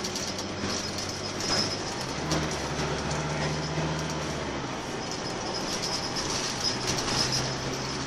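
Interior sound of a Scania K230UB Omnilink bus under way: the rear-mounted diesel engine runs with rattles from the body and fittings. The engine note grows louder and higher about two seconds in, then drops back about halfway through.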